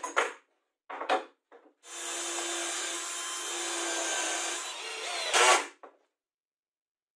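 Cordless drill driving a screw into plywood: a few short trigger bursts, then about four seconds of steady motor whine, ending in a brief louder burst.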